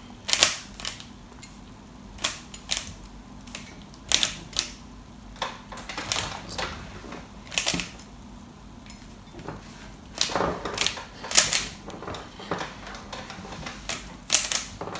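Rubik's Cube being turned by hand: plastic layers clicking and clacking as they are twisted, in irregular bursts of a few turns at a time.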